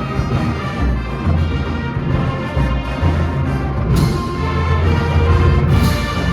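Marching band playing a parade tune, brass over drums, with a crash about four seconds in and another near the end.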